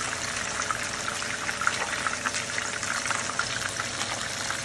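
Whole seasoned porgy frying in a pan of hot oil: a steady, dense sizzle of bubbling oil with many small crackles and pops.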